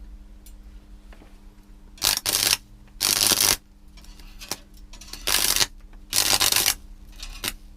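Arc welder striking short arcs: four half-second bursts of crackling arc noise with a low buzz, about two, three, five and six seconds in. A steady transformer hum runs between them.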